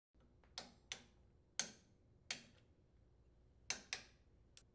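Click-type torque wrench clicking as cylinder head bolts are tightened to 250 inch-pounds: about seven sharp, separate clicks at uneven intervals, two of them in a quick pair near the end.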